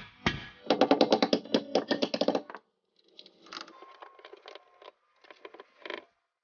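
Background music ending on a fast drum fill that cuts off about two and a half seconds in, followed by faint, irregular clicking and rattling.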